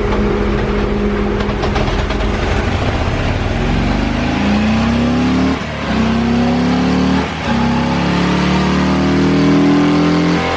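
Stock Harley-Davidson Milwaukee-Eight 114 V-twin running a baseline dyno pull. The engine note rises in pitch in three stretches, broken twice by short dips like gear changes, then falls away near the end.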